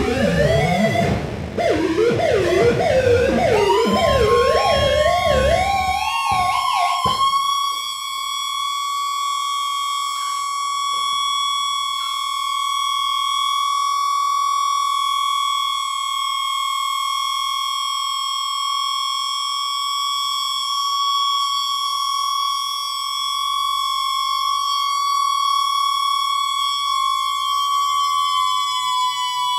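Experimental electronic music: layered warbling electronic tones whose pitch wobbles and sweeps. About seven seconds in they settle into a single steady high tone with overtones, which is held and sags slightly in pitch near the end as a low tone comes in.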